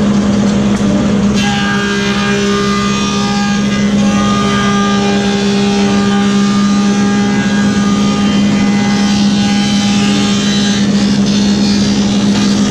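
Woodmaster 725 planer with a helical cutterhead running steadily with a constant hum. About a second in, a hardwood board enters the cutterhead and a higher whine joins the hum, fading near the end as the board clears the machine.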